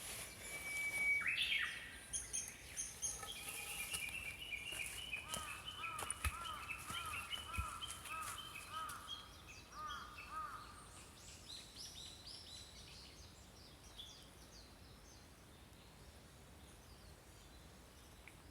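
Several small songbirds chirping and singing over one another: repeated short arched notes and higher quick trills, busiest in the first half and thinning out to sparse faint chirps toward the end.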